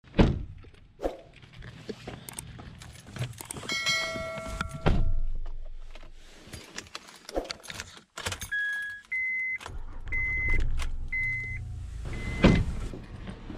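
Keys jangling and handling clicks at a car, then a car's chime beeping about once a second, five times, with a knock near the end as the car door is handled.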